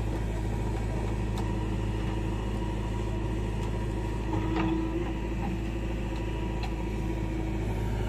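Diesel engine of a JCB 3DX backhoe loader running steadily while its backhoe bucket digs into soil, with a few faint knocks about halfway through.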